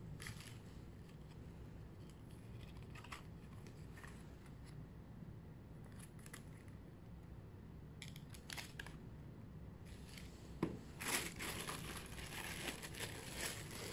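Tissue paper crinkling and rustling as it is handled, with a few light paper rustles and taps at first and a busier stretch of crinkling over the last few seconds.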